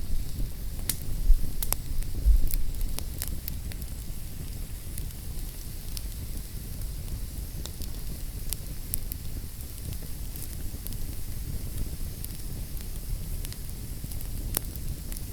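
Fireplace fire crackling: irregular sharp pops and snaps over a steady low rumble, with a few louder pops in the first couple of seconds.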